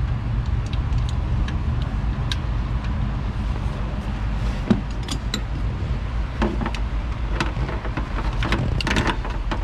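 Scattered light metallic clicks and clinks of hand tools, a spark plug socket and extension being fitted and worked, over a steady low rumble, with a small cluster of clicks near the end.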